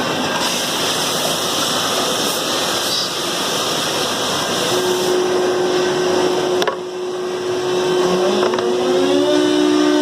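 Heian CNC router running with a steady rushing noise. About five seconds in a steady whine starts, there is a sharp click just before seven seconds, and near the end a second whine rises in pitch and levels off as a spindle spins up.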